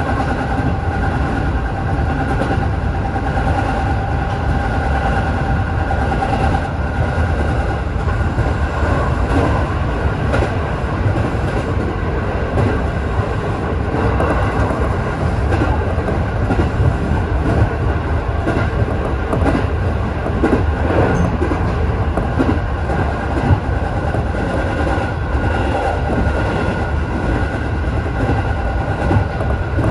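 JR 205 series (600 subseries) electric commuter train running at speed, heard from the front of the train: steady rolling rumble with wheel-on-rail clatter and a steady high whine.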